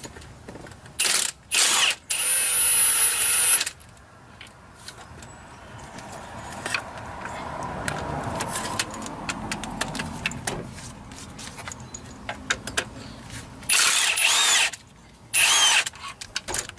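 Cordless impact gun zipping out engine front-cover bolts in short bursts: three in the first four seconds, the last about a second and a half long, then two more near the end. Light clicks and clinks of tools and bolts in between.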